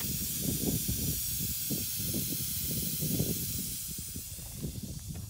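Steady high hiss of air escaping from a punctured pickup truck tire, with an uneven low rumble underneath.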